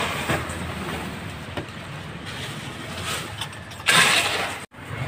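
A motor engine running steadily amid street noise, with a louder rushing noise about four seconds in and a brief abrupt cut just after it.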